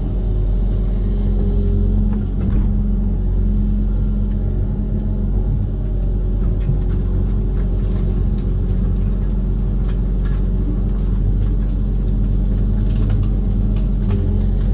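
Diesel engine of a Kobelco SK130 amphibious excavator running steadily under load, with a deep, even rumble.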